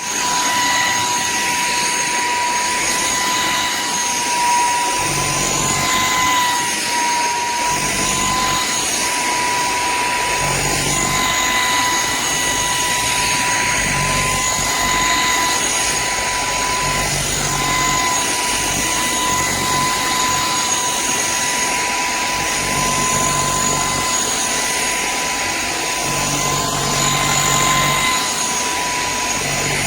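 Shark IZ140C Rocket Pro cordless stick vacuum running steadily: a constant high motor whine over an even rush of air.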